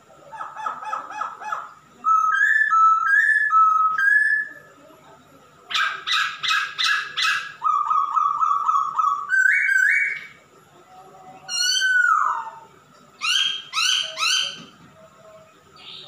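Male masked laughingthrush singing loud, varied phrases: runs of rapid repeated notes and clear whistles, with short pauses between phrases and a slurred note falling in pitch about twelve seconds in.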